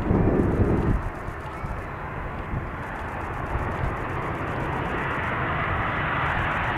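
Boeing 777-200ER twin-engine jet airliner landing: a steady rush of jet engine noise that slowly swells, with a louder low rush in the first second.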